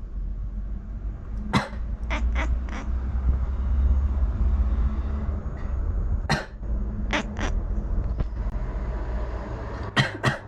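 A person coughing in short sharp bursts, in three clusters of one to three coughs each. Between them a sleeping cat makes a low, continuous grumbling sound in reaction to the coughing.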